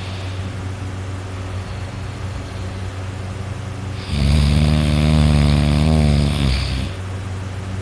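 A person snoring heavily in deep sleep. Over a steady low hum, one loud, pitched, wavering snore comes about four seconds in and lasts about three seconds.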